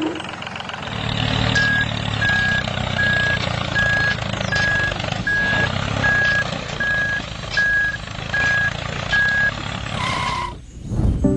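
A vehicle's reversing alarm beeping steadily, about a dozen evenly spaced beeps, over a low engine rumble, as of a truck or digger backing up. A short whooshing sweep comes near the end.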